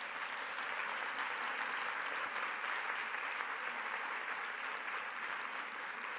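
Audience applauding: steady, dense clapping from a large crowd that keeps up without a break.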